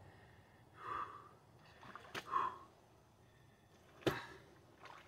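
A person puffing a few short, breathy exhalations while carrying a heavy fish, with a sharp knock about two seconds in and a thump about four seconds in.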